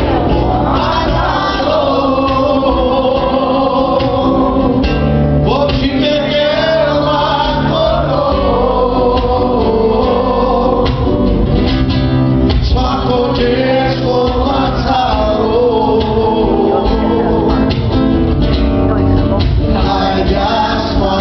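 Live gospel song: a man singing into a microphone while strumming an acoustic guitar, with other voices and instruments filling in underneath.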